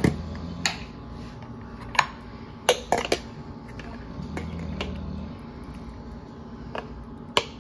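A metal spoon clinking against a jar of minced garlic and a stainless steel bowl as garlic is scooped onto raw chicken thighs: several scattered light clicks over a low steady hum.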